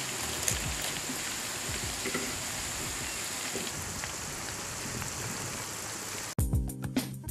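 Sliced onions deep-frying in hot oil, a steady sizzling hiss. About six seconds in it cuts off abruptly and music with a beat takes over.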